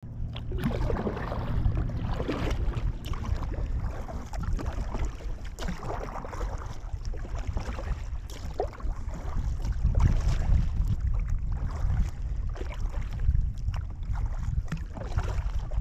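Kayak paddle strokes splashing and dripping in the water, with wind buffeting the microphone throughout.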